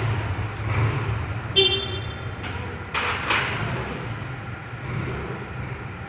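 Yamaha MX King 150 single-cylinder four-stroke motorcycle engine running with a steady low note, the engine noise the owner calls 'berisik' (noisy). A short horn-like toot comes about one and a half seconds in, and two sharp clicks come around three seconds.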